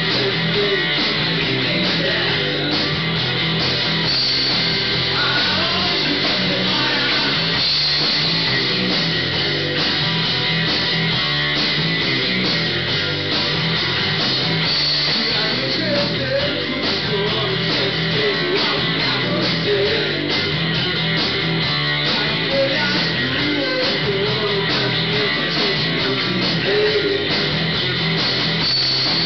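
Live rock trio playing a song: electric guitar, electric bass and drum kit, at a steady, full level throughout.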